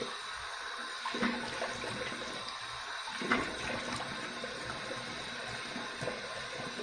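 Bathroom sink tap running steadily during a warm-water face rinse after a shave, with a few brief splashes as water is brought up to the face.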